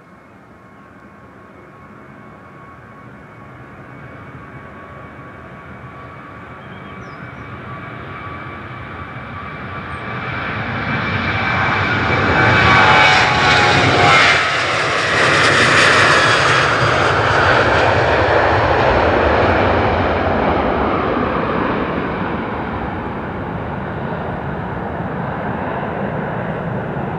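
Boeing 737-800's CFM56-7B turbofan engines at takeoff thrust: a steady high whine growing louder over the takeoff roll, peaking a little before halfway as the jet passes and lifts off, with the whine dropping in pitch as it goes by. The engine noise then fades slowly as it climbs away.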